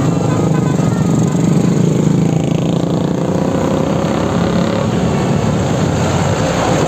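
Bus's diesel engine running loud and steady, with a faint whine that slowly rises in pitch over the second half.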